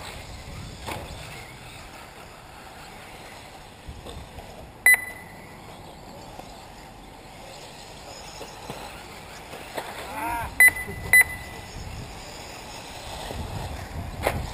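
Short electronic beeps from the race's lap-timing system: one about five seconds in, then two in quick succession about eleven seconds in, over a steady background hum.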